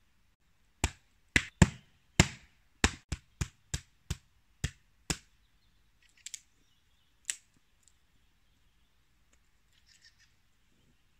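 Wood being split into kindling on a chopping block: about eleven sharp wooden knocks in quick, uneven succession over some four seconds, then two more after a pause.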